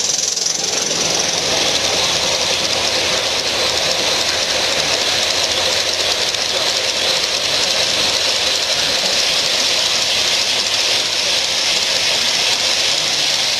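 Gauge 1 live-steam model train running past close by on its track, giving a steady hiss and running noise.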